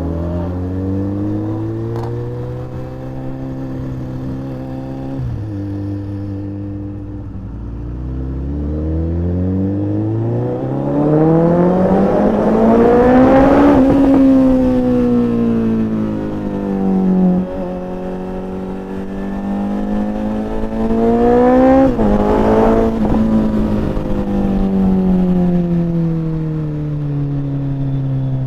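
Suzuki Hayabusa motorcycle's inline-four engine pulling under throttle while riding: its pitch climbs steadily to a peak about halfway through, falls back, then climbs to a second peak and falls again near the end.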